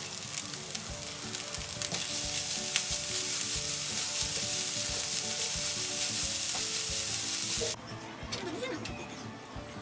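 Food frying in hot oil in a pan, a steady sizzle with scattered clicks of a utensil. The sizzle stops abruptly about eight seconds in, leaving only a few quieter clicks.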